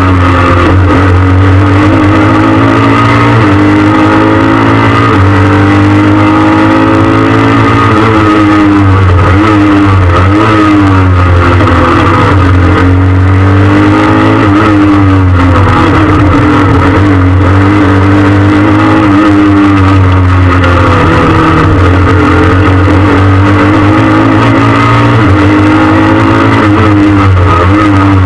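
Peugeot 306 S16 rally car's four-cylinder 16-valve engine heard loud from inside the cabin at full stage pace. The revs climb and drop over and over as it accelerates, shifts and brakes for corners.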